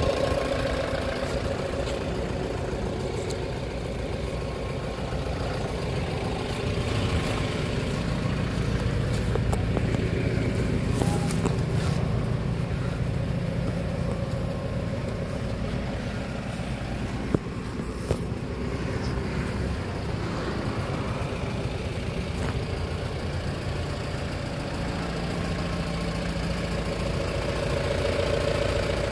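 Mahindra Bolero Maxx pick-up's diesel engine idling steadily with the bonnet open. Two short clicks come about 17 and 18 seconds in.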